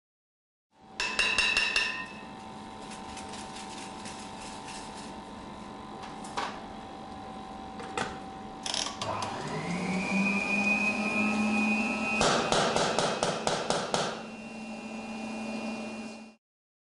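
A steady machine hum broken by a few single knocks. A little past halfway a small electric motor spins up, its pitch rising and then holding as a steady whine. Bursts of rapid metallic rattling and tapping come at the start and again about three quarters of the way through.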